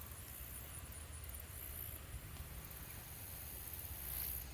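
Faint outdoor ambience: a high, steady insect buzz, typical of crickets, over a low rumble.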